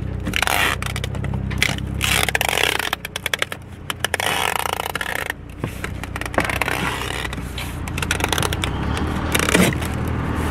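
Packing tape being pulled off the roll and pressed down, in several irregular rasping, crackling pulls, over a low steady hum.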